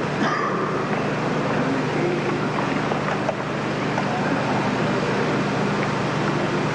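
A steady rushing noise: the murmur of spectators in a large sports hall, mixed with the hiss and low hum of an old VHS tape transfer.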